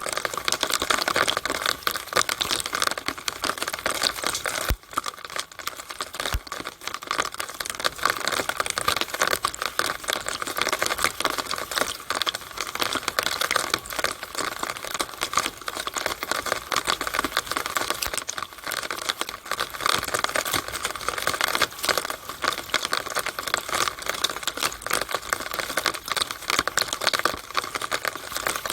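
Rainwater running through a downspout: a dense, steady patter of drips and splashes, thinning briefly about five seconds in.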